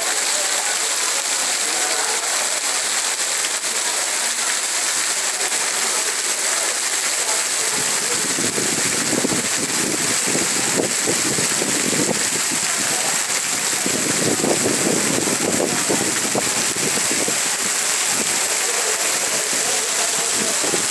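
Heavy rain pouring down onto stone paving, wooden tables and trees: a loud, steady hiss. From about eight seconds in a lower rushing sound joins it and swells twice.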